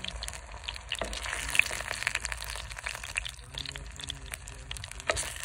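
Hot oil bubbling and crackling around food deep-frying in a clay pot, with many small pops and spits.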